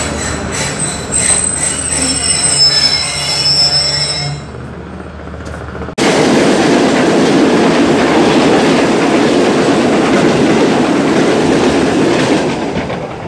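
Passenger train's wheels squealing in several steady high tones over a running rumble as the coaches roll slowly through the station, heard from the coach doorway; the squeal dies away about four seconds in. A couple of seconds later the sound cuts abruptly to a loud, steady rush of a passenger train's coaches passing close by.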